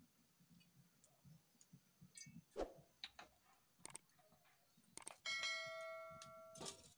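An aluminium pressure cooker pot rings like a bell after a metal knock, most likely the pincer tongs gripping its rim. The ring starts about five seconds in and fades over a second and a half. A few light knocks and clicks come before it.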